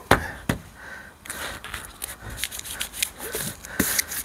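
Hands in nitrile gloves handling a newly fitted windscreen and its trim. Two sharp knocks in the first half-second are followed by scattered small clicks and rustles.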